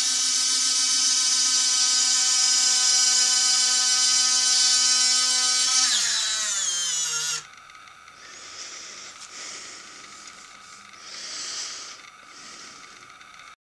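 Metal-geared electric motor in servoless landing-gear retracts, driven from a servo tester, whining at a steady pitch for about six seconds. It then slides down in pitch and stops as the gear leg reaches the end of its travel. Fainter mechanical noise follows.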